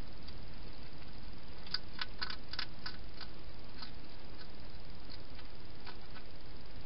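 Hedgehog eating from a bowl, crunching dry food: a quick run of sharp clicks about two seconds in, then scattered single clicks, over a steady hiss.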